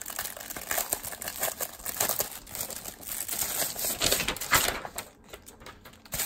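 Clear plastic packaging wrap crinkling as it is pulled open and off by hand. The crackling is dense for about four and a half seconds, then drops to a few scattered rustles near the end.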